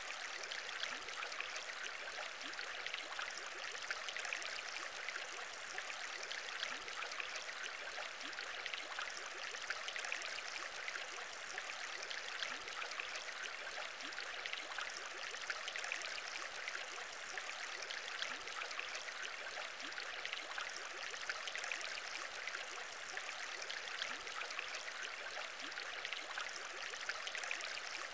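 Aquarium bubbling: a steady stream of small bubbles in water, many tiny pops over an even fizz.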